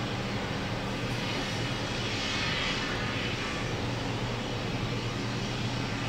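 Steady engine drone of heavy construction machinery running: a constant low hum under a broad hiss that swells briefly about two to three seconds in.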